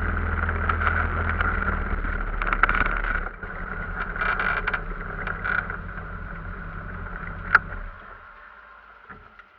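An engine idling with a steady hum. It drops in level about three seconds in, carries on more quietly and dies away near the end, with a single sharp click just before it stops.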